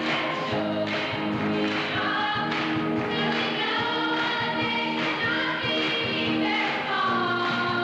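A high-school chorus singing a song together with instrumental accompaniment and a steady beat.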